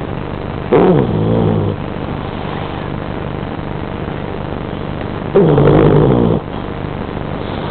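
A sleeping dog snoring: two loud snores, each about a second long and some four and a half seconds apart, over a steady background hum.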